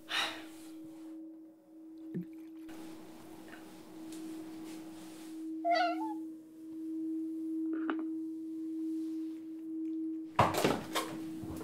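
A domestic cat meows once, a short call about six seconds in, over a steady held tone. A few short, sharp noises come near the end.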